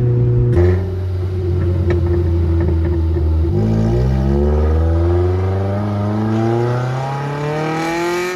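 Car engine pulling hard: revs hold steady, drop at a gear change about three and a half seconds in, then climb steadily in pitch as the car accelerates.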